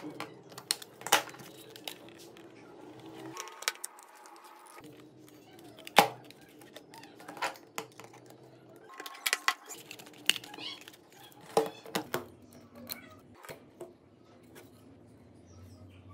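Plastic clips and casing of a Samsung Galaxy phone clicking and snapping as the back is pried apart with a metal pry tool. Scattered sharp clicks and taps, the loudest about six seconds in and near twelve seconds.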